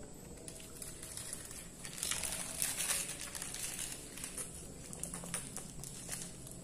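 Thin plastic bag of drinking water crinkling loudly as it is picked up and squeezed to drink from, about two seconds in, followed by scattered small crinkles and clicks. Before that, fingers rustle in rice on paper and banana leaf.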